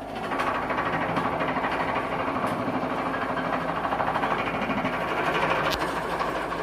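Hydraulic vibratory pile driver (Daedong DPD350T) running, a fast, even pulsing that comes up to full strength within the first half second and holds steady, with a sharp click about six seconds in.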